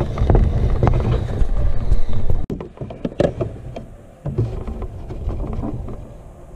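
Handling noise from a camera inside a hard plastic RC truck body: a low rumble for the first couple of seconds that cuts off suddenly, then a string of clicks and knocks as the body and camera are touched and moved.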